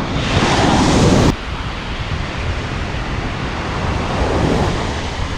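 Ocean surf washing on the beach, with wind buffeting the microphone. A louder hissing wash in the first second or so cuts off abruptly.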